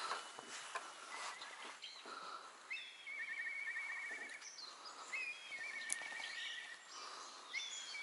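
A songbird singing three times. Each phrase is a short rising note followed by a rapid trill lasting about a second. There is a single sharp click about six seconds in.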